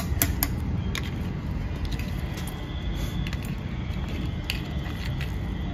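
Small plastic toy dump truck pushed by hand through dry soil: a few scattered sharp clicks and gritty scrapes over a steady low rumble.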